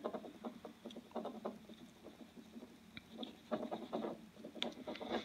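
Soft polishing pad rubbed by hand back and forth over a Taurus 689VR revolver's metal frame and barrel: a faint run of quick, scratchy strokes in uneven clusters.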